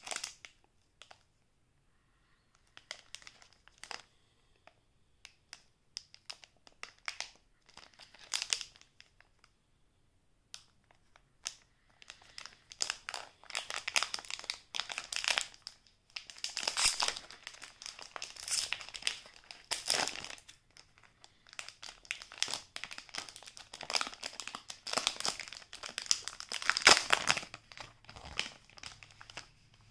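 Plastic wrapper of a baseball card fat pack crinkling and crackling in the hands, sparse at first, then busier and louder through the second half as the pack is pulled open along its crimped seal.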